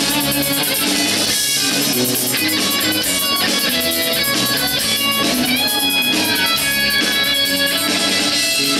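Live rock band playing loudly and steadily: electric guitars, bass guitar, keyboards and a drum kit.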